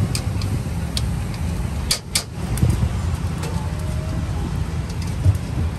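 Steady low rumble of street traffic, with a few sharp metal clicks, a close pair about two seconds in, from tongs working meat on a charcoal grill grate.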